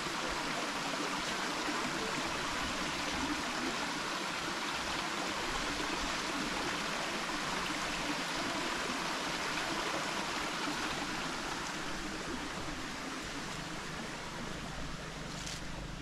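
Small rocky stream running, a steady rush of water that fades slightly toward the end.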